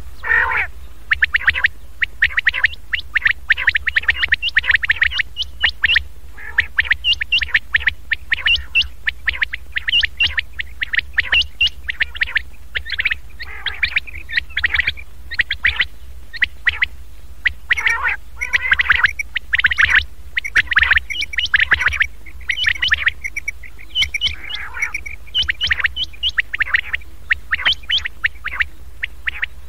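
Common quail calls played from a lure recording used to draw in wild quail for trapping: many short, sharp calls in fast clusters, with hardly a pause, over a steady low hum.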